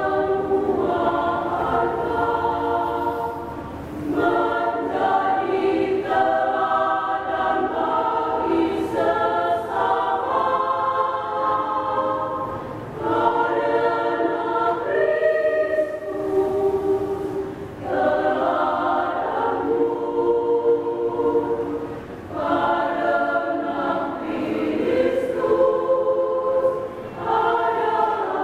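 Women's church choir singing a hymn in parts, phrase after phrase, with brief dips in level between phrases.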